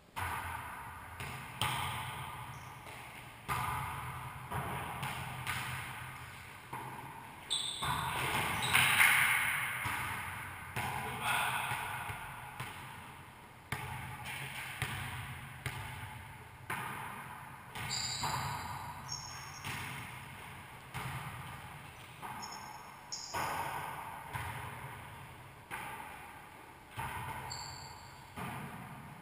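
A wallyball smacking off hands, the walls and the hardwood floor of an enclosed racquetball court, each sharp hit followed by a ringing echo, about every one to two seconds. Near the middle and again toward the end come a few short high squeaks from sneakers on the wooden floor.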